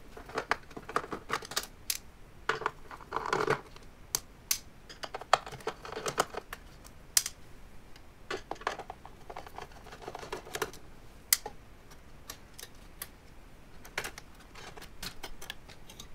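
Screwdriver undoing the screws that hold a Beogram 4002/4004 turntable's main circuit board, then the board being handled and flipped up: an irregular run of sharp clicks with a few short scrapes.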